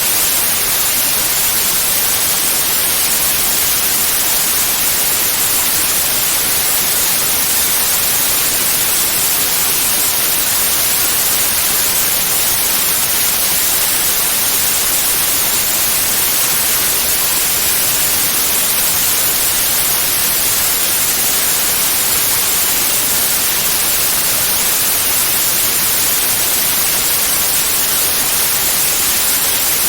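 Steady white noise: an even, unbroken hiss across all pitches, brightest in the high end, holding the same level throughout.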